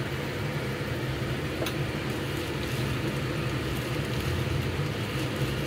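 Steady low rumble of kitchen background noise while white gourd simmers in a steel kadhai over a gas burner, with one faint click about a second and a half in.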